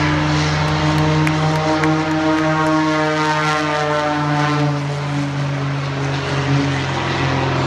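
Aerobatic race plane's Lycoming six-cylinder piston engine and propeller at full power, running steadily as the plane flies low past.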